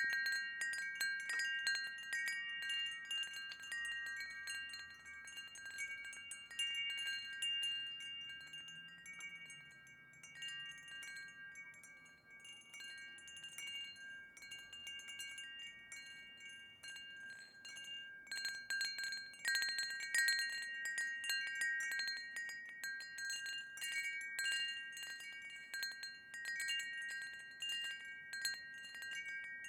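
Wind chimes ringing, struck irregularly so that several held, overlapping metallic tones keep sounding. The strikes thin out around the middle and come thick and loud about two-thirds of the way through.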